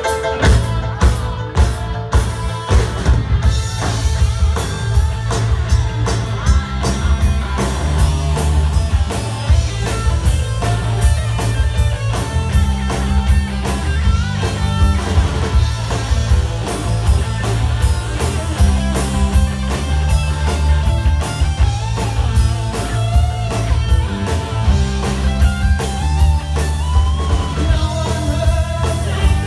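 A rock band playing a song live and loud, with a steady bass line changing notes every second or two under regular drum hits.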